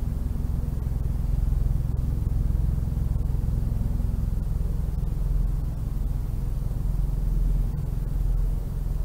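A steady low rumble with a faint hiss above it, even throughout with no distinct events.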